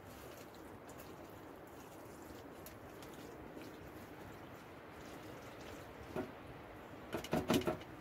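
Pasta and bolognese being stirred with a makeshift wooden spoon in a stainless steel camping pot. There is a single knock about six seconds in, then near the end a quick run of louder knocks of the spoon against the metal pot.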